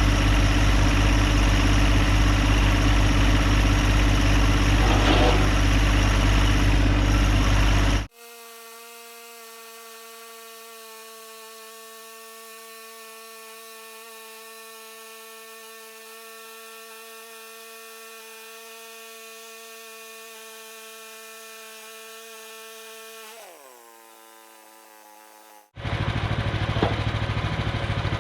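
The sawmill's gas engine runs loud and steady, then cuts off suddenly about eight seconds in. A much quieter steady whine follows and winds down in pitch near the end. The engine noise then returns just as suddenly.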